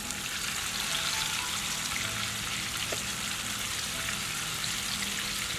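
Marinated fish frying in hot coconut oil with curry leaves in a frying pan on a portable gas camp stove: a steady sizzle with small crackles, the fish freshly laid in the hot oil.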